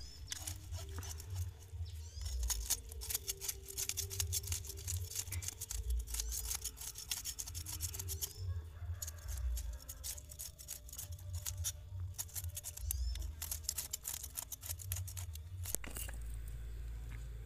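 Knife scraping the scales off a snakehead fish on a concrete step: rapid, irregular rasping strokes.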